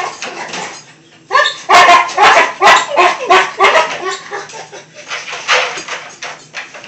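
A dog yelping in a quick series of short, high cries starting about a second in, fading to fainter ones after about four seconds.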